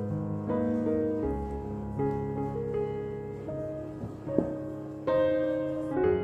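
Gentle background piano music playing a slow melody, with one short knock about four seconds in.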